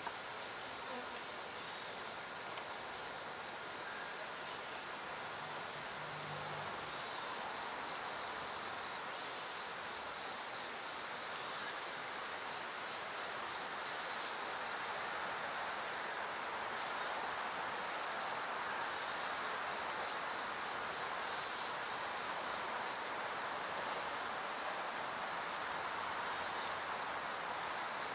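Chorus of insects singing: a steady, high-pitched trill with a regular pulsing beat.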